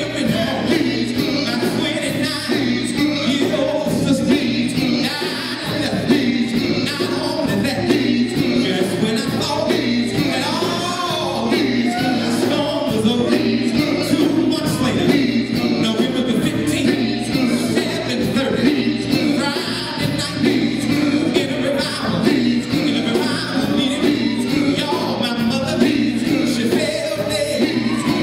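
Live band performance: a group of male singers on handheld microphones, backed by electric guitars and bass, singing a song.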